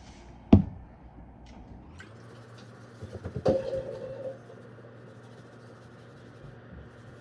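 Kitchen handling sounds: a sharp knock about half a second in as something is set down hard, then a low steady hum comes in. Around three seconds in there is a brief rattle and clink of items with a short ringing tone.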